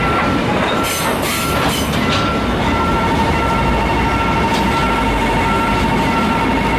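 Freight train of cement tank wagons rolling past at a level crossing: a steady rumble of wheels on the rails with some clacking. The crossing's warning bell rings a short repeating tone about one and a half times a second. A steady high tone joins about two and a half seconds in.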